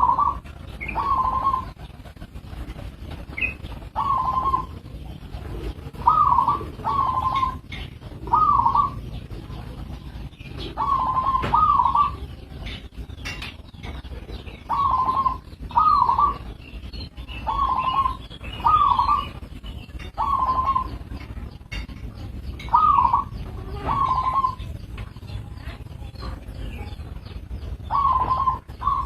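Zebra dove (perkutut) cooing over and over in short phrases of one to three notes, a phrase every second or few, with faint chirps of other small birds behind.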